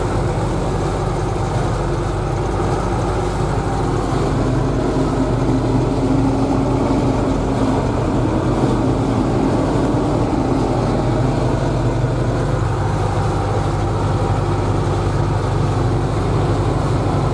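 Zetor 8011 tractor's four-cylinder diesel engine running steadily under load, heard from inside the cab, as it drives an SKPU 220 forage harvester chopping maize for silage.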